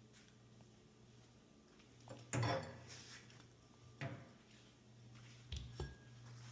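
Kitchen handling noises: a loud knock and clatter about two seconds in, another sharp knock a couple of seconds later, and two dull thumps near the end, over a faint steady hum.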